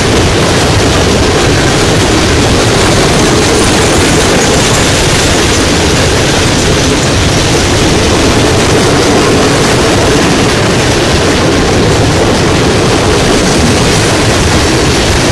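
Fully loaded open-top coal cars of a Norfolk Southern freight train rolling past, their steel wheels running on the rails in a loud, steady noise.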